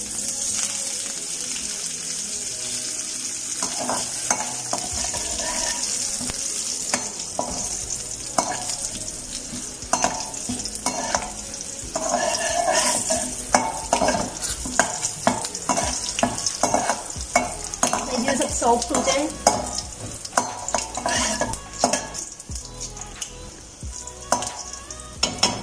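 Curry leaves, green chillies and mustard seeds sizzling in hot oil in a steel kadai, frying for a tadka tempering. A slotted metal spoon stirs them, scraping and clicking against the pan, with the clicks coming thicker in the second half.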